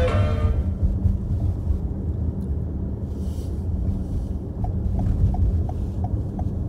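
Steady low rumble of a car driving, heard from inside the cabin, with a faint steady hum under it. Near the end a light ticking starts, about three ticks a second.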